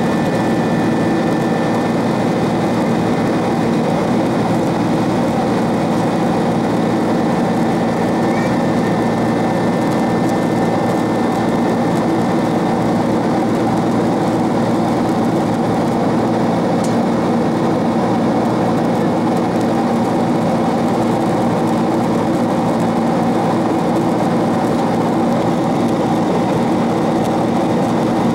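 Steady cabin drone of a Boeing 767-300ER's turbofan engines and airflow in flight, heard from inside the cabin beside the wing, with several steady humming tones in it.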